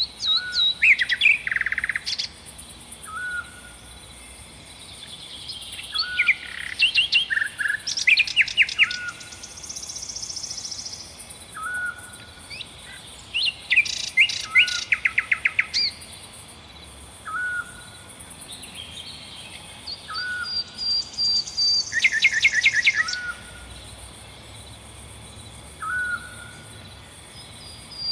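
Several songbirds singing at once in woodland: one repeats a short call every second or two, while others give fast rattling trills and drawn-out buzzy notes.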